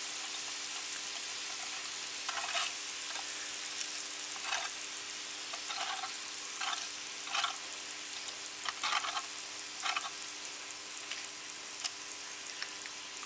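Hot oil sizzling in a frying pan under a grated-potato base covered with raw egg white: a steady hiss with a few short, louder crackles scattered through it.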